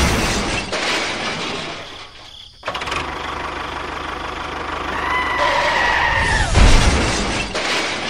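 Crash and vehicle sound effects. A heavy crash comes at the start, followed by a steady engine-like rushing noise. A high held tone with a slight fall in pitch starts about five seconds in, and a second heavy crash comes about six and a half seconds in.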